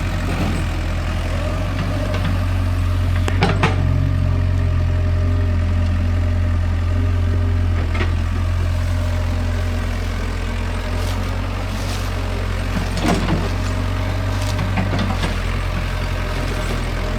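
Heavy engine running steadily at low revs, with a few sharp knocks or clanks over the top.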